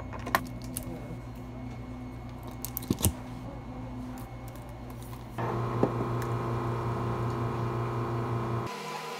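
Steady low machine hum with a few light clicks of a plastic bottle and blender jar being handled. About five seconds in, a louder, steady motor hum with a held whine starts and then cuts off suddenly near the end.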